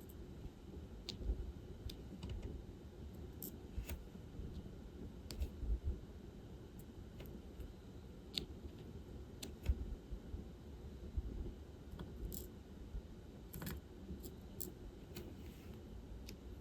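Diamond painting work: small, irregular plastic clicks and taps as the drill pen picks resin drills from the tray and presses them onto the canvas, with soft low thumps of handling.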